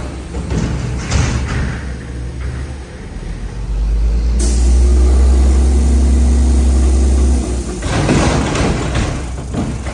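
Mack MR garbage truck's engine throttled up and held at a steady high speed for a few seconds to drive the Heil rear loader's hydraulic packer. Loud clanking and banging from the hopper and packer follow near the end.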